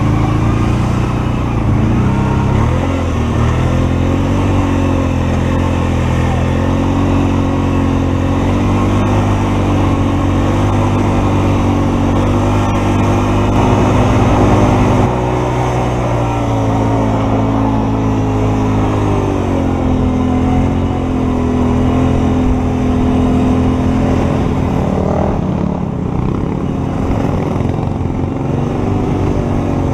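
Off-road vehicle engine running under load through the sand, towing a stalled vehicle. The revs rise and fall slowly, and the sound steps down a little about halfway through.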